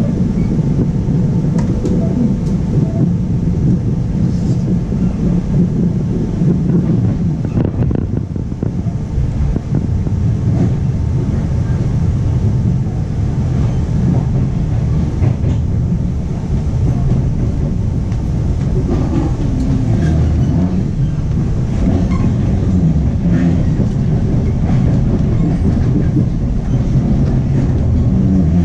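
On-board running noise of a 25T passenger coach: a steady low rumble of the wheels on the rails, with scattered clicks and knocks from the track.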